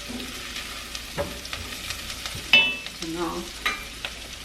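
Onions and diced mushrooms sizzling as they fry in a pan while being stirred, with a cooking utensil clicking against the pan several times and one ringing clink about two and a half seconds in.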